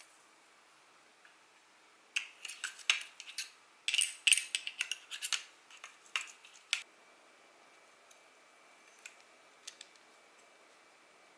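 Small metal parts and tools clicking and clattering as a fishing reel is handled and taken apart, in a dense run of sharp clicks for a few seconds, then a few scattered ticks.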